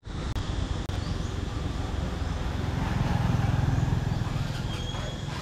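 Motor vehicle engine running and passing on the street, a low rumble that swells to its loudest about three and a half seconds in.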